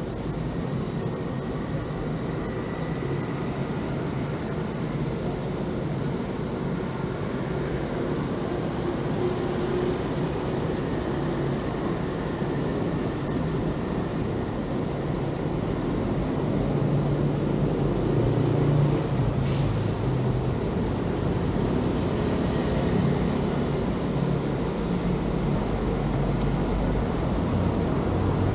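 City street ambience: a steady hum of traffic, growing a little louder past the halfway point, with one brief click about two-thirds of the way through.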